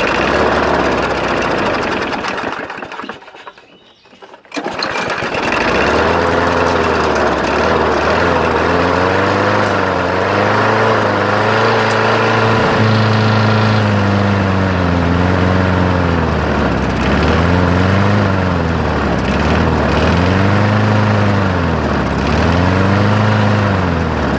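Briggs & Stratton lawn mower engine started: it runs for about three seconds, dies, catches again and then runs with its speed rising and falling over and over, surging. The owner puts the surging down to a weak spring that does not pull back the choke lever.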